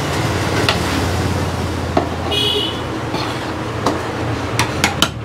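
A steel serving spoon scooping biryani and knocking against the side of a large metal biryani pot, a handful of sharp clicks, over a steady hum of traffic noise. A brief high-pitched tone sounds about two seconds in.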